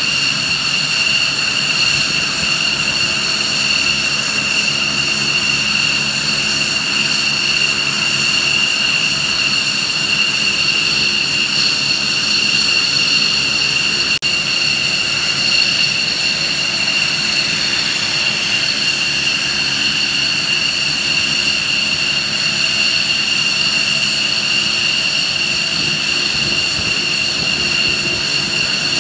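Aircraft turbine engines running at idle: a steady high-pitched whine over a constant rushing noise.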